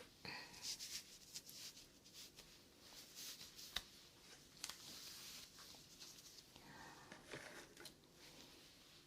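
Faint close-microphone ASMR sounds: scattered soft clicks and breathy hiss, with a sharper click about four seconds in.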